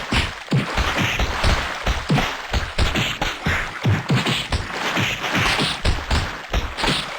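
A rapid, unbroken series of sneezes, about two a second, each a short sharp burst.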